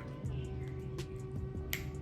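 Background music with a steady low beat and held tones, with a few sharp clicks spread through it.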